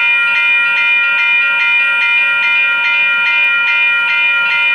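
Railroad grade-crossing bell ringing steadily, about two and a half strokes a second, each stroke ringing on into the next.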